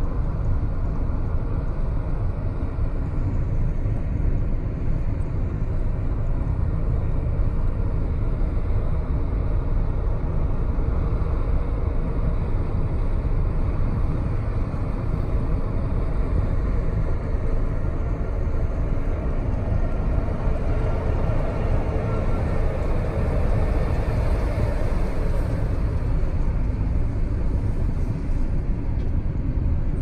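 Steady low road and tyre rumble from a car driving at speed, heard inside the cabin, with a few seconds of louder, higher-pitched noise about two-thirds of the way through.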